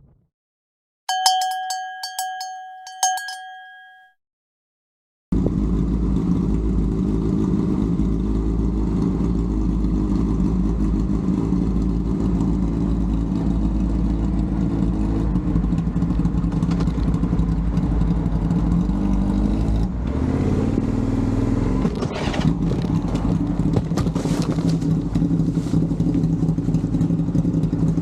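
A bell-like chime tone rings a few times. After a short gap of silence, a vehicle engine runs steadily on the road. Its note shifts briefly about two-thirds of the way through, then settles again.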